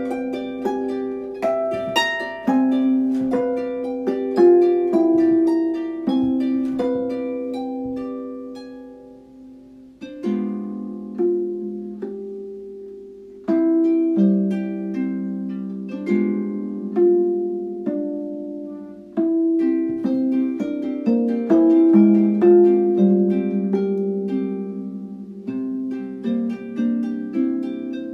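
Solo Erard Gothic harp playing a slow piece: plucked notes and chords ringing and dying away. About a third of the way in, a phrase fades out and a new one starts with a firm chord.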